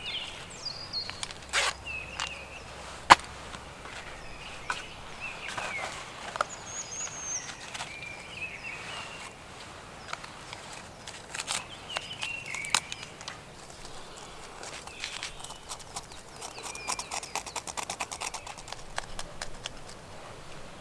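Dry twigs and birch bark snapping and crackling: scattered sharp snaps at first, running into a quick, dense crackle near the end. Short high bird chirps are heard now and then.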